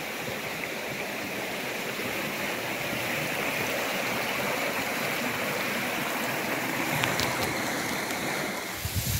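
Shallow rocky stream rushing and burbling steadily over stones. A gust of wind hits the microphone right at the end.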